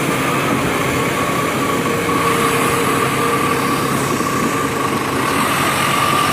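Small electric motor of a battery-powered toy vehicle whirring steadily, with a thin high whine over a noisy gear rattle.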